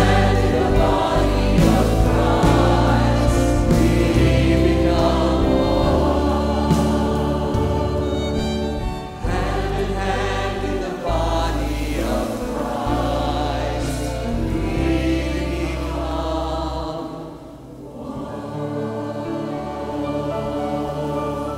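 Church choir singing with instrumental accompaniment, in full sustained chords over a deep bass line. The music drops away about seventeen seconds in, leaving softer held tones.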